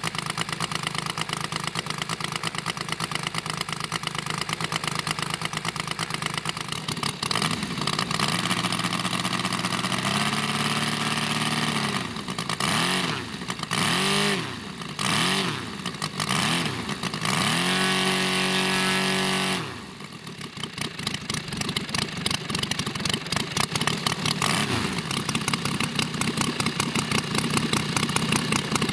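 Saito FG90R3 three-cylinder four-stroke petrol radial engine on a large model aircraft, idling, then revved up and down several times with throttle blips. It is held at high revs for a couple of seconds and drops back to idle about two-thirds of the way through, in a ground run-up.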